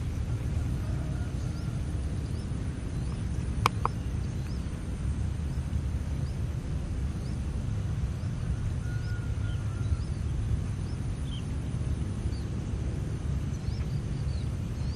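Outdoor ambience: a steady low rumble with a bird repeating a short high chirp about once a second. Two sharp clicks sound close together about four seconds in.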